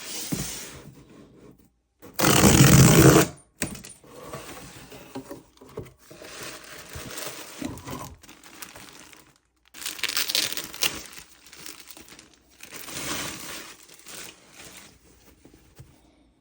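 Packaging being unwrapped by hand: paper and plastic crinkling and rustling in short separate stretches, with a loud rip lasting about a second, about two seconds in.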